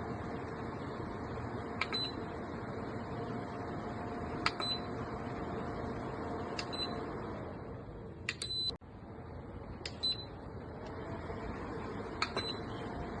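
Xiaomi Mijia DC tower fan 2 running, a steady whoosh of air with a faint motor hum, while its control panel beeps about six times as settings are changed. Near the middle the airflow fades and briefly cuts out, then builds back up with a rising whine.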